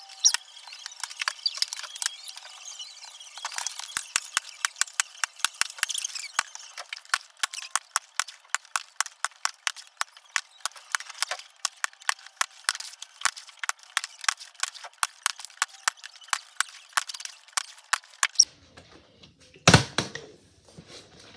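Fast, high-pitched clatter of plastic water bottles being flipped and landing, with many sharp taps a second and no low end, as in sped-up footage. It stops about eighteen seconds in, and a single loud thud of a bottle landing follows near the end.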